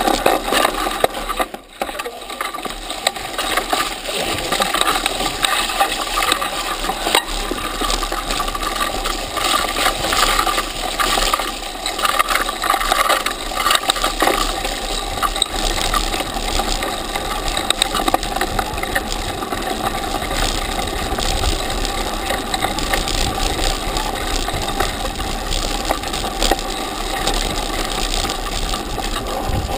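Mountain bike rolling fast down a rough, rutted dirt track, its chain and frame rattling and clinking over the bumps without pause, over a steady rush of tyre noise, heard through a camera mounted on the bike.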